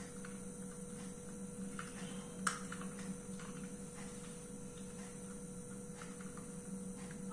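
Steady electrical hum with faint scattered clicks and one sharper click about two and a half seconds in, from a hand chakli press being worked.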